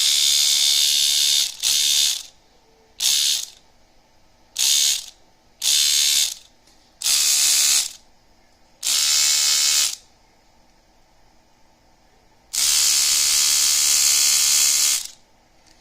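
Homemade tattoo machine, driven by a small car cassette deck motor, buzzing in about eight separate runs as it is switched on and off. The runs last from about half a second to two and a half seconds, with the longest near the end.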